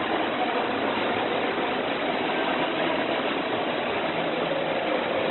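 Steady droning hum and hiss of an indoor pool hall's ambience, with no distinct events.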